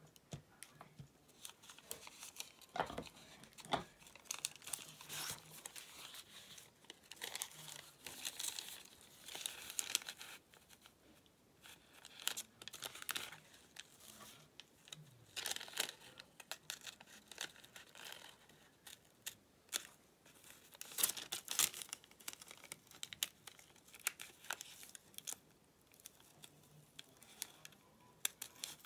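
Paper and fabric rustling and crinkling in irregular short bursts as pattern pieces, tracing paper and fabric are handled, with small spring-loaded snips cutting paper near the end.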